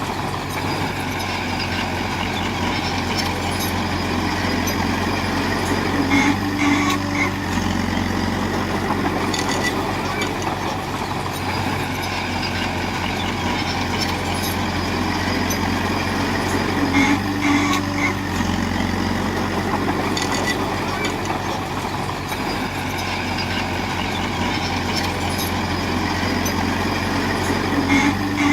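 Heavy diesel engine of earthmoving machinery running steadily under work. A brief higher-pitched tone with a few clicks recurs about every eleven seconds.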